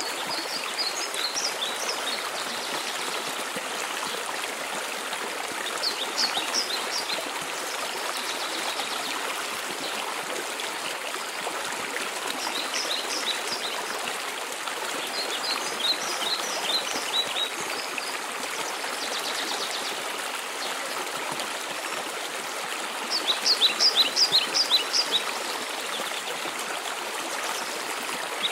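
Steady rush of a mountain waterfall, with a songbird singing short trills of rapid high notes every few seconds over it, the loudest trill near the end.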